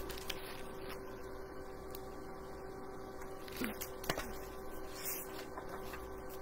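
Faint steady electrical hum of room tone, with a few soft clicks and handling noises about halfway through.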